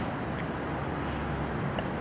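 Steady workshop background noise with a few faint, light metallic clicks from engine timing parts being handled.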